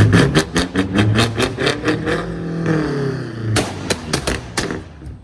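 A car engine revving hard, its pitch rising and falling, with a rapid run of sharp pops and cracks from the exhaust; it dies away near the end.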